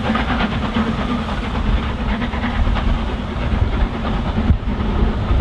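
Steam locomotive hauling a train of coaches away, its exhaust beating in a quick, regular rhythm that grows fainter as the train recedes, over a steady low rumble.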